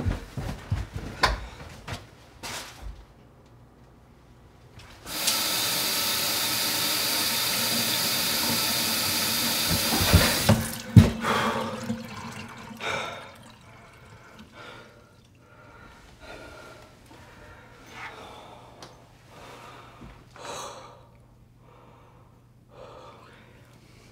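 Water gushing from a tap into a sink for about five seconds, then shut off abruptly. This is the water flowing again after the main shut-off valve has been turned back on. Scattered knocks come before and after.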